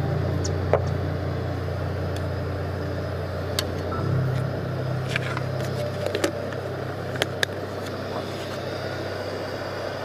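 Sharp clicks and taps of a metal coffee can, its plastic lid and a scoop being handled as ground coffee is spooned into a glass French press. Under them runs a steady low mechanical hum.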